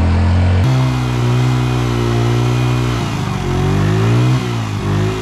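Small Kawasaki 50cc youth ATV engine revving hard while the quad sits stuck on ice and snow, its wheels spinning in place. The revs step up about a second in, then dip and climb again several times in the second half.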